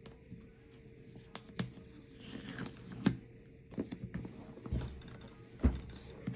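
A product box being opened and its packaging handled by hand: scattered sharp clicks and knocks with scraping, rustling and some tearing in between.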